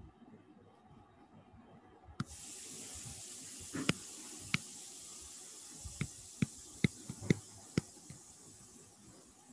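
A steady high hiss starts suddenly about two seconds in. Over it come a series of sharp clicks and taps, about eight of them, from writing by hand on a digital whiteboard.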